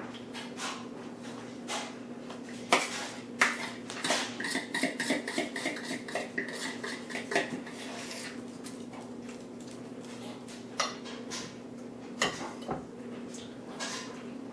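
A kitchen utensil scraping and clinking against the inside of a ceramic mixing bowl as a thick, creamy mixture is scooped out into a ceramic baking dish, in irregular scrapes and knocks. A steady low hum runs underneath.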